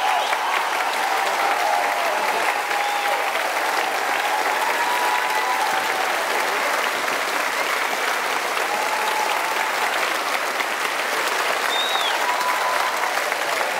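A large outdoor crowd applauding steadily, with a few voices calling out over the clapping.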